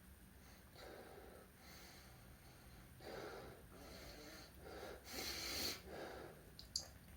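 A man taking a string of sharp, wheezy breaths as a sneeze builds but does not come: a false start. The loudest, most forceful breath comes about five seconds in, and a brief click follows near the end.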